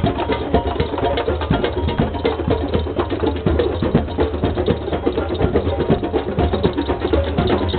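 Drum circle: many hand drums played together in a dense, fast, continuous rhythm, with sharp wood-block-like clicks among the strokes and a steady low rumble underneath.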